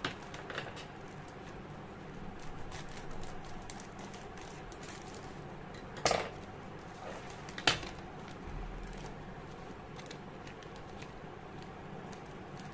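Plastic mailer and paper packaging being handled, with rustling, crinkling and small clicks. Two louder sharp clicks near the middle, about a second and a half apart.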